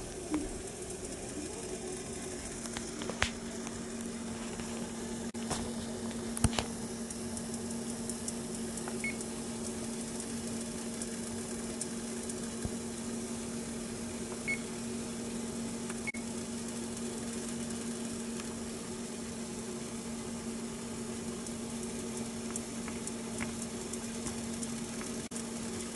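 Three short, high electronic beeps from an oven's control-panel keypad as its kitchen timer is set, over a steady hum with a faint hiss. A few sharp clicks fall in the first seven seconds.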